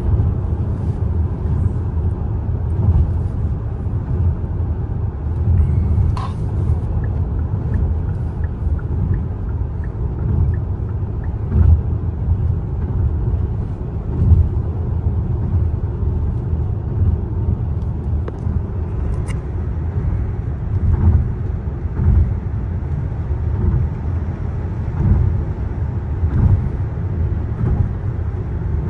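Cabin noise of a Hyundai Palisade cruising at highway speed: a low, steady rumble of the road and drivetrain, swelling and easing slightly.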